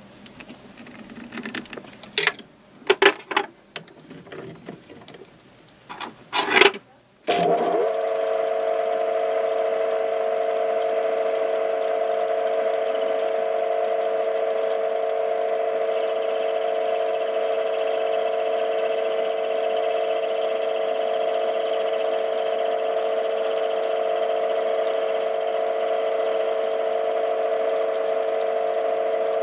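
A few sharp metallic clicks and knocks as screws are tightened with a screwdriver, then about seven seconds in a TV-16 hobby lathe switches on suddenly and runs with a steady hum.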